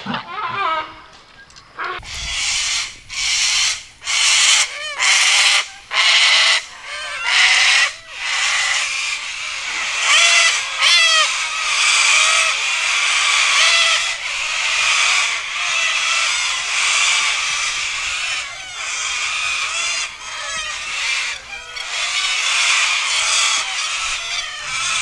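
A flock of cockatoos screeching, many harsh calls overlapping almost without a break.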